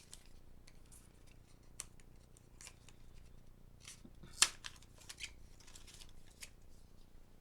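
Tarot cards being handled and flipped through one at a time: a string of short light clicks and rustles as cards slide over each other, with one sharp, louder snap about four and a half seconds in.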